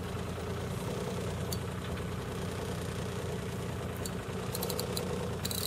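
Boat engine idling steadily with an even low hum. A short run of clicks comes near the end.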